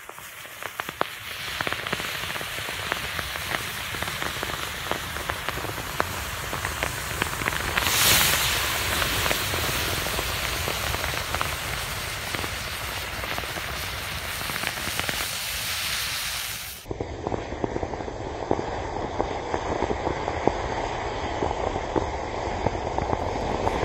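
Thousands of safety matches igniting in a chain reaction and burning together: a dense hissing fizz thick with countless tiny crackles and pops, flaring louder about eight seconds in.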